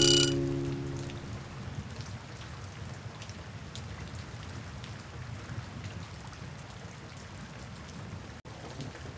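Steady rain falling, a recorded rain ambience, with a guitar chord ringing out and fading over the first second or so.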